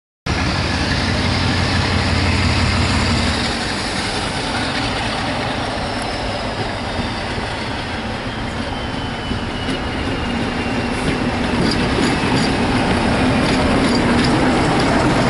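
Diesel locomotive working as it hauls a train of coaches past, its engine running steadily and growing louder toward the end, with the coach wheels clicking over the rail joints in the last few seconds.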